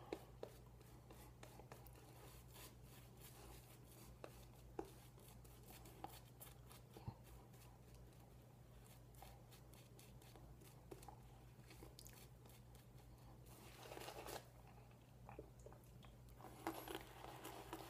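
Faint crackle of a shaving brush swirling soap lather on the face: many tiny rapid ticks, with a couple of slightly louder scrubbing passes near the end, over a low steady hum.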